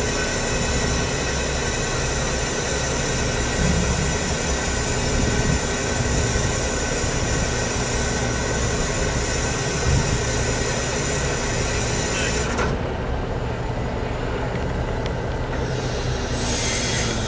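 Mobile crane's diesel engine running steadily under load as it hoists a concrete floodgate panel, with a high hiss that drops away about two-thirds of the way in.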